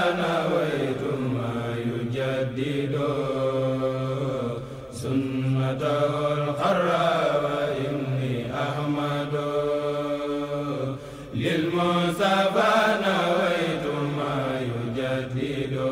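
Male devotional chanting in long, slow melodic phrases with held and gliding notes, pausing briefly about five seconds and eleven seconds in.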